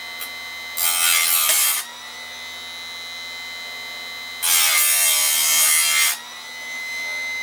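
Chicago Electric chainsaw sharpener's motor running with a steady whine, its grinding wheel brought down onto a chain tooth twice, each a harsh grind of a second or so, about a second in and again near the middle.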